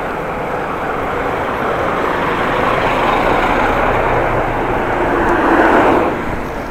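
A motor vehicle passing on the road, its noise swelling and then falling away about six seconds in.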